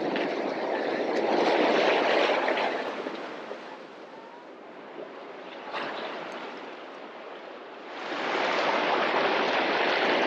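Steady rushing of wind and sea wash. It is louder for the first few seconds, dies down through the middle and rises again about eight seconds in.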